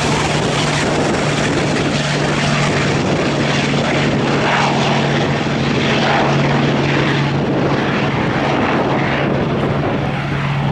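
Large piston engine of a converted unlimited-class race plane running with a steady propeller drone.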